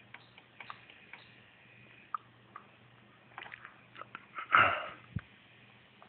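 A person sniffing sharply close to the microphone about four and a half seconds in, with a thump just after. Scattered light clicks sound over a faint steady low hum.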